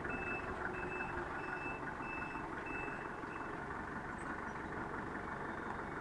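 Forklift reversing alarm beeping, about one and a half beeps a second, stopping about three and a half seconds in, over the steady running of the forklift's engine.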